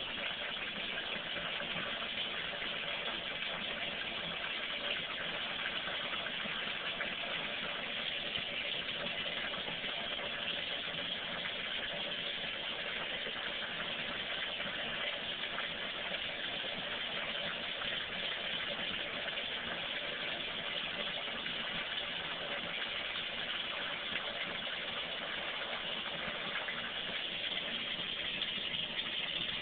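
Shower running into a bathtub: a steady hiss of spraying water, unchanging throughout.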